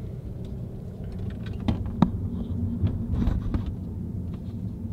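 Steady low rumble of road and engine noise inside a moving car's cabin, with a few light clicks and knocks about two seconds in, the sharpest of them the loudest thing heard.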